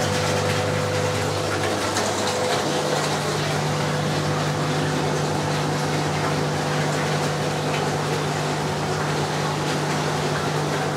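Aquarium filtration running: a steady rush of moving water with a low, even pump hum.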